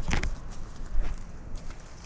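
A cat's paws stepping over woodland ground, irregular soft steps and rustles heard close up through a camera worn on the cat's collar.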